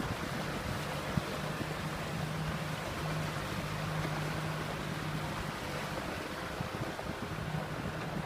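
Kubota M6040 SU farm tractor's diesel engine running steadily with a low drone, wind noise on the microphone.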